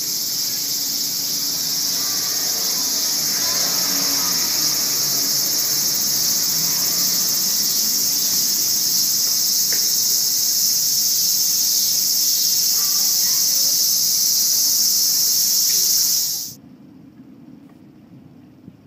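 Loud, steady chorus of cicadas, a dense high-pitched buzz that cuts off suddenly about two seconds before the end.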